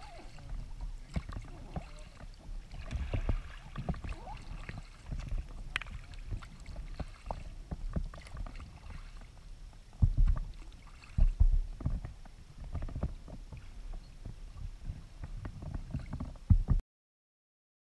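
Paddling a Klepper Aerius II folding kayak: paddle blades dipping and water lapping against the fabric hull, with irregular low thumps that are loudest in two bunches about two-thirds of the way through. The sound cuts off abruptly near the end.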